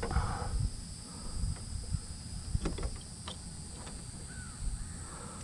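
Light knocks and clicks of a flat-screen TV's plastic case and power cord being handled, over low wind rumble on the microphone. A short bird call comes about four seconds in.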